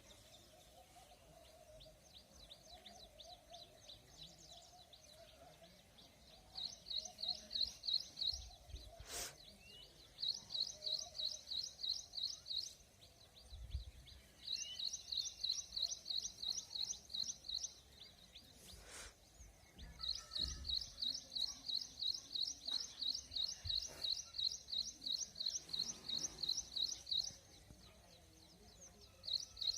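A small songbird singing in repeated bouts of quick, high, evenly spaced chirps, about six notes a second, each bout lasting a few seconds before a short pause. A fainter lower warbling sounds in the first few seconds, and a few sharp clicks fall between the bouts.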